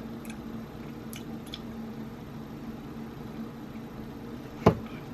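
Light handling of a takeout drink and food: faint scattered clicks and rustles over a steady low room hum, with one sharp knock near the end.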